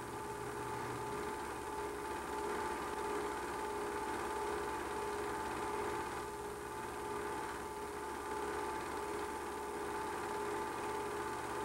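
Film projector running: a steady mechanical hum with two constant tones over an even hiss.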